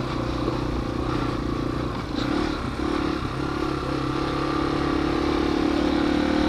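Yamaha TW200's single-cylinder four-stroke engine running steadily while the bike is ridden, its note getting a little louder over the second half.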